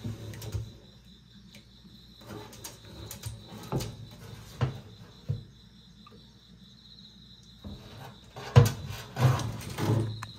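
Scattered light knocks and scrapes of box turtles' claws and shells on a stainless-steel sink, with a run of louder knocks near the end.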